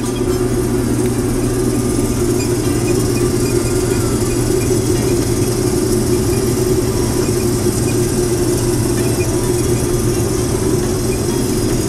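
Heavy farm machine's engine running steadily: a loud, even drone that holds the same pitch and speed throughout.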